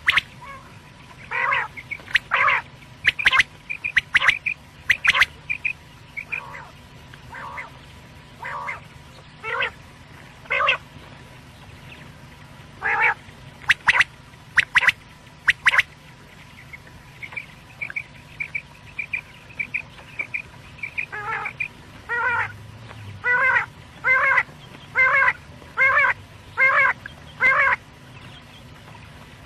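Quail calling: sharp short notes, then a quick run of high chirps, then a steady string of calls a little over half a second apart near the end. A faint steady hum lies under the calls.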